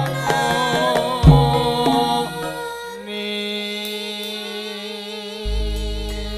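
Javanese gamelan music in campursari style. Struck, pitched notes and low drum strokes give way about halfway through to held, wavering notes. Near the end a deep low stroke comes in and rings on.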